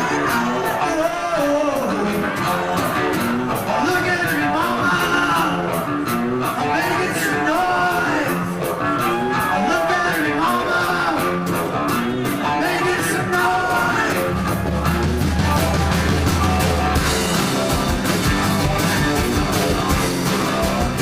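Live rock music with a singing voice, guitar and drums, loud and steady throughout; a deep low note comes in about fourteen seconds in and holds for a few seconds.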